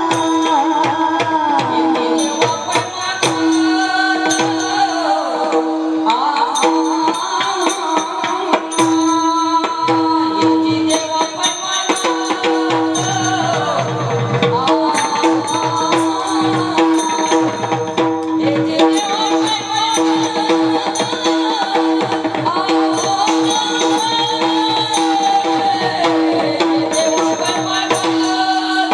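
Marathi kirtan music: a singing voice over a steady held drone note, with hand-drum strokes and small cymbals keeping time.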